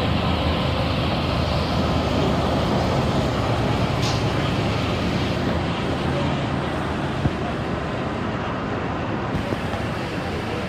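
Steady low engine rumble of a train standing at a station platform, easing off slightly in the second half.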